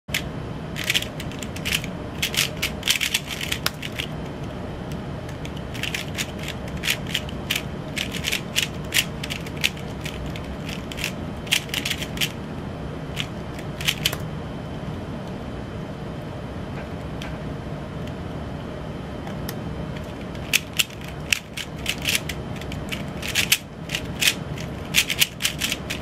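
Plastic 3x3 speedcube being turned fast, its layers clicking in rapid runs, sparser for a few seconds in the middle, over a steady low hum.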